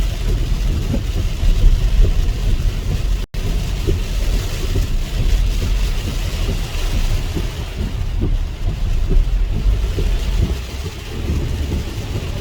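Moving car heard from inside the cabin: a steady low rumble of road and engine noise, with a hiss of heavy rain on the car. The sound drops out for an instant about three seconds in.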